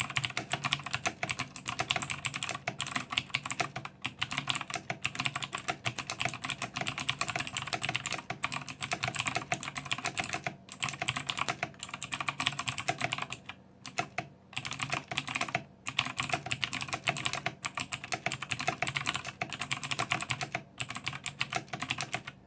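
Fast typing on a mechanical keyboard with Outemu Blue clicky switches: a dense, rapid stream of sharp key clicks, with a few brief pauses past the middle, stopping at the end.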